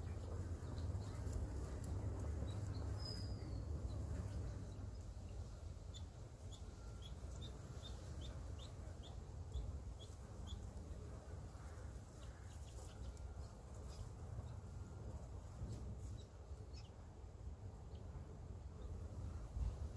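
Ducklings peeping: short, faint, high chirps, a few a second for several seconds mid-way, plus one short falling call, over a steady low background rumble.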